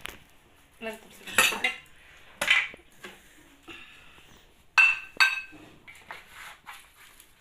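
A knife knocking and clinking against a metal baking pan as a baked flatbread is cut and pulled apart: several separate knocks, the loudest two close together just before five seconds in, each ringing briefly.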